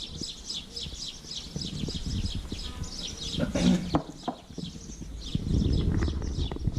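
Birds chirping in a fast run of short falling chirps, about five a second, pausing about four seconds in and starting again near the end, over low bumps and rustles of handling.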